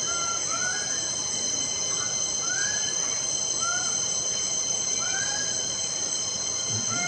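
A steady, high-pitched insect drone of several held tones, with a bird giving short arching calls that rise and fall, repeated every second or so.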